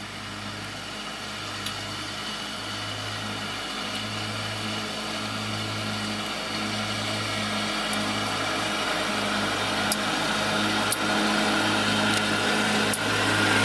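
Parked truck's engine idling, a steady low hum heard from inside the cab, growing gradually louder, with a few faint clicks.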